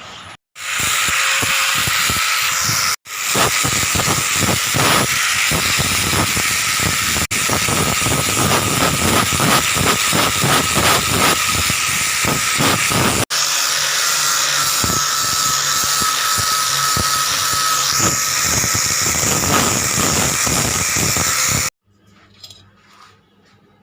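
Angle grinder scouring a kadhai: a steady high whine under a harsh scraping hiss, broken by a few brief gaps and cut off suddenly near the end.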